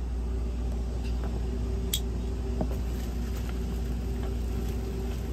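Steady hum of HVAC equipment running, with crinkling of foil-covered flexible duct and small clicks as hands work the duct loose from a dehumidifier's collar; one sharper click about two seconds in.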